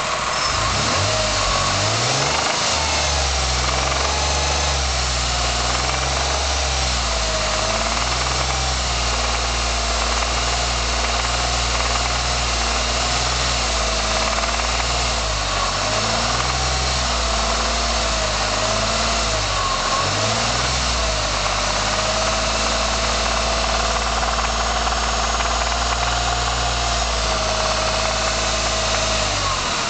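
1999 Ford SVT Contour's 2.5-litre V6 engine idling with a ticking noise, its pitch wavering briefly a few times. The owner does not know the tick's cause.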